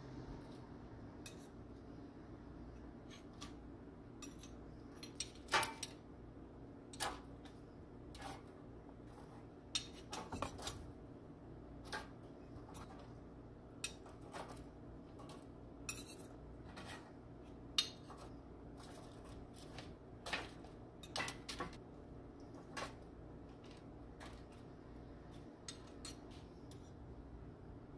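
Two metal spoons clinking and scraping against each other at irregular intervals as spoonfuls of ground beef are pushed off into tortilla chip cups, over a steady low hum.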